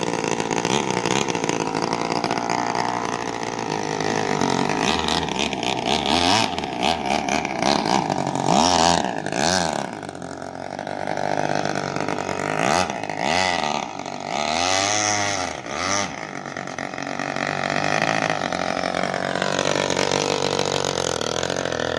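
Small two-stroke 23cc Japanese grass-trimmer engine driving a homemade radio-controlled boat at high revs, its buzzing pitch rising and falling again and again with the throttle and as the boat speeds past and away.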